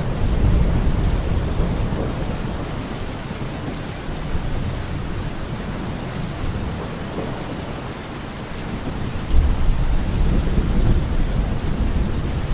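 Heavy, dense rain falling steadily, with low rolling thunder rumbling underneath; one rumble near the start fades, and another swells up suddenly about nine seconds in.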